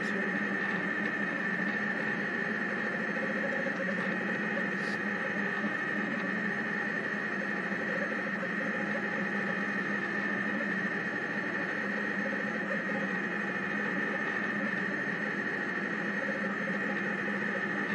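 Rostock delta 3D printer's stepper motors whining steadily as the hotend traces a calibration print.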